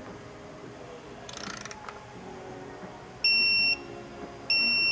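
Digital torque wrench beeping twice, two steady high beeps of about half a second each in the last two seconds, signalling that the set torque of 21 foot-pounds on the oil drain plug has been reached. A brief faint rattle comes earlier.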